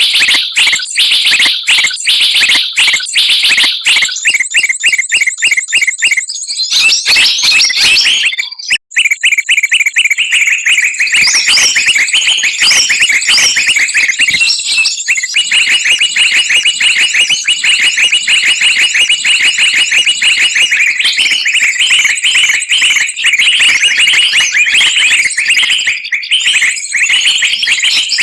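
Recorded calls of several small songbirds mixed together and played loud as a trapping lure: shrill, rapid chirps repeating many times a second, with a brief break about nine seconds in.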